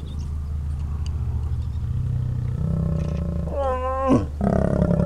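Lions growling while mating: a low steady rumble underneath, then from about three and a half seconds in a loud, pitched growl that drops sharply in pitch, with a second growl starting right after it near the end.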